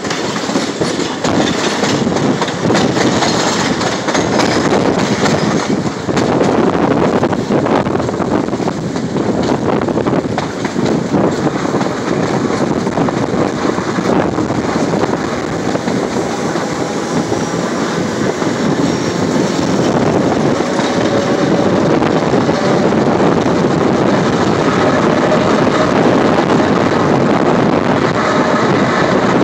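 Chicago, North Shore & Milwaukee interurban car 251 running along the track: a steady rumble of steel wheels on the rails with a scattering of clicks over rail joints.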